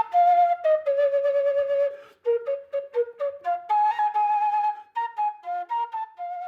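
Solo flute playing a melody of quick separate notes that step downward in short phrases, with a few longer notes held with vibrato.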